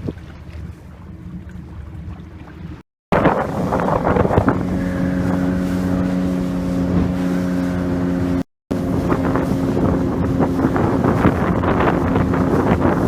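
Motorboat engine running steadily at speed, a loud even drone, with wind buffeting the microphone. The first few seconds, before a cut, are a quieter rush of wind and water.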